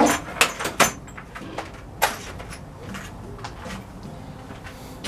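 Clicks, knocks and clatter of hands rummaging through tools to find a drill bit, with a few sharp hits in the first second and another about two seconds in.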